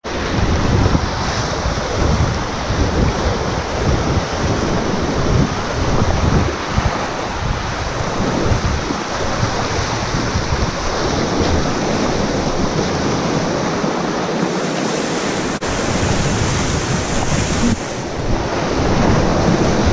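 Whitewater rapids rushing and splashing over the bow of a packraft, with spray hitting close to the microphone. Rough low buffeting on the microphone comes and goes through most of the run and eases near the end.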